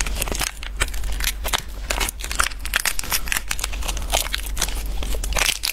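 Plastic candy wrapper crinkling and tearing as a lollipop is unwrapped: a dense, continuous run of small crackles.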